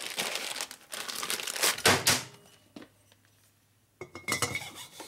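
Plastic bag crinkling and rustling as a piston is pulled out of it and handled, loudest just before the sound dies away about two seconds in. Near the end come a few light metallic clicks from handling the piston.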